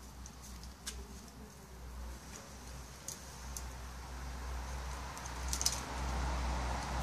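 Small clicks and crinkles of copper foil tape being wrapped and pressed around the edge of a piece of stained glass, a few sharp ticks among them, over a low steady hum. A soft hiss grows louder over the last couple of seconds.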